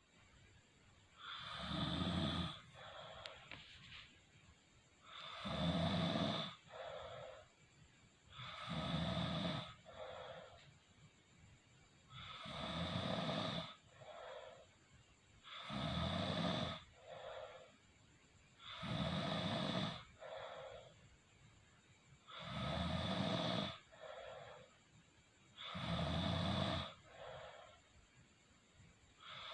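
Snoring in a steady rhythm: eight loud snores about three and a half seconds apart, each followed by a softer, shorter breath sound.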